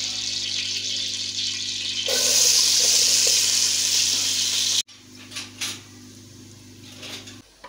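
Sliced onions frying in hot oil in an aluminium pot: a steady sizzle that gets suddenly louder about two seconds in. It drops abruptly to a quieter sizzle just before five seconds, with a few short knocks after it. A steady low hum runs underneath.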